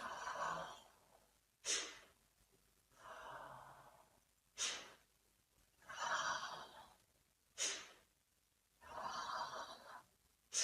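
A person's breath in the Kundalini 'Sneezing Buddha' breathing kriya: breaths of about a second alternate with short, sharp, forceful bursts of breath. The bursts come about every three seconds, four times in all.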